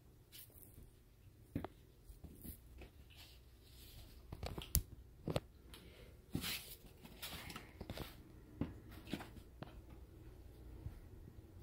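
Kittens playing: scattered soft taps, knocks and rustles, a few sharper clicks near the middle, with no voices.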